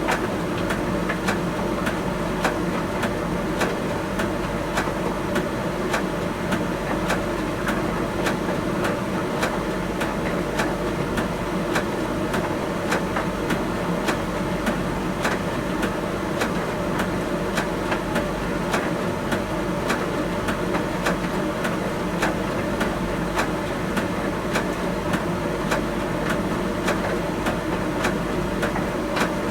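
Miele T1 heat pump tumble dryer running: a steady hum from the drum motor and compressor, with light knocks repeating evenly, about two a second.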